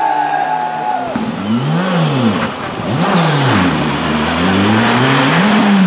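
Škoda Fabia R5 rally car's turbocharged four-cylinder engine driven hard through a corner, its revs rising and falling several times from about a second in.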